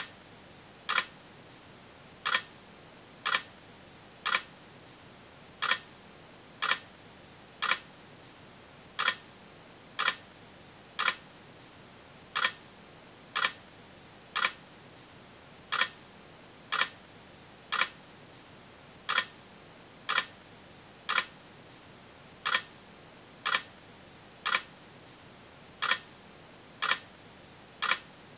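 Sharp clicks about once a second, falling into a repeating pattern of three clicks evenly spaced and then a slightly longer gap, over a faint steady hiss.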